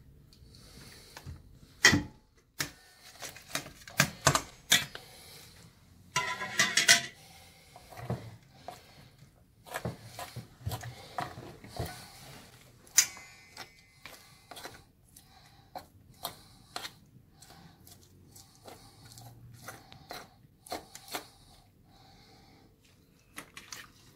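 Metal fork clinking and scraping against a stainless steel tray as meat is picked off a boiled sheep's head, in irregular taps and clicks, with a louder clatter about six seconds in.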